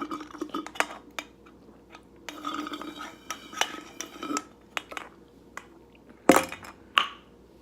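Someone drinking the last of a soda, with small clicks and clinks of the drink container throughout. Two sharp, loud knocks come near the end.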